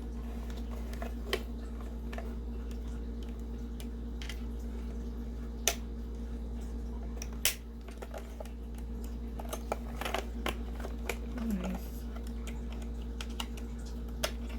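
Scattered clicks and taps from a Darkflash GD100 mechanical keyboard with yellow switches as it is handled and its keys pressed, irregular rather than a steady typing rhythm. A steady low hum runs underneath.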